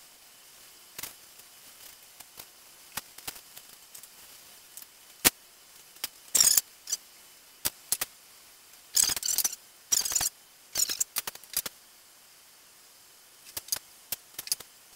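A cloth wiping down the sanded sheet-metal hood of a John Deere 185 lawn tractor in several short scuffing strokes, mostly bunched in the middle, with scattered clicks and knocks from a metal can being handled.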